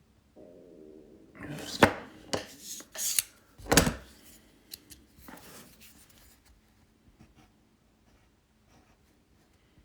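Handling of a brass mechanical pencil against a measuring caliper: a run of sharp metal clacks and scrapes, the loudest about four seconds in, then a few light ticks as it settles.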